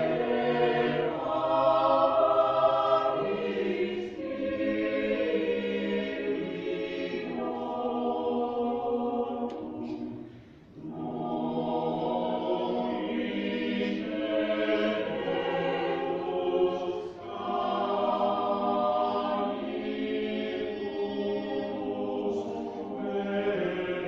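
Mixed choir of women's and men's voices singing sustained chords. The choir breaks off briefly between phrases about ten seconds in, and again for a moment later on.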